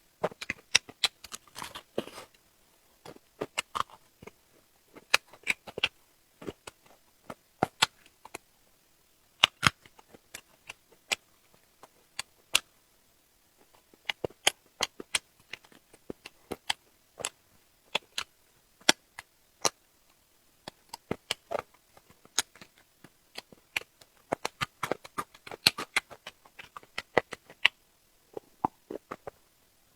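Close-miked eating: a person chewing, with a stream of irregular wet clicks and smacks of the mouth.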